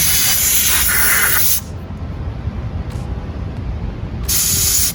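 Two bursts of hissing spray: a long one that cuts off about a second and a half in, and a shorter one starting near the end, over a steady low rumble.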